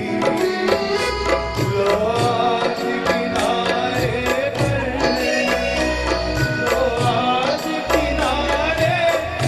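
Live band music: a man singing an Indian-style melody into a microphone over tabla and a steady drum beat.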